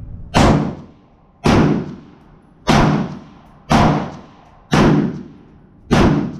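Six shots from an American Tactical Omni Hybrid AR pistol in 5.56 with a muzzle brake, fired about one a second, each a sharp crack with a short trailing ring.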